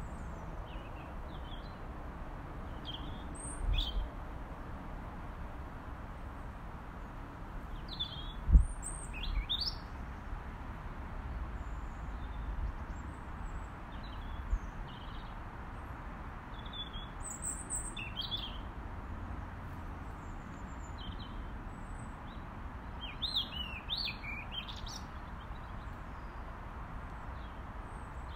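A robin calling in short, high, thin phrases at irregular intervals over a steady background hiss. There is a single dull thump about eight and a half seconds in.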